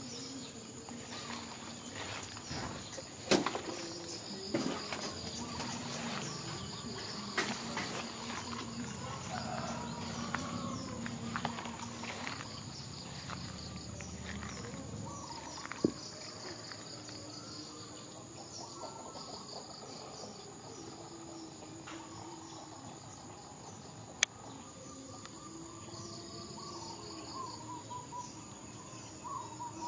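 Steady high-pitched chorus of insects with a pulsing trill under it, and a few sharp clicks standing out over it.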